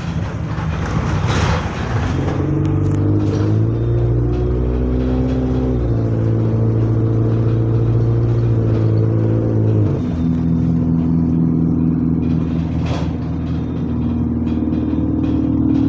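Diesel bus engine heard on board, pulling away and rising in pitch, with two sudden drops in pitch about six and ten seconds in as the automatic gearbox changes up, then climbing again near the end. A single sharp knock or rattle is heard about thirteen seconds in.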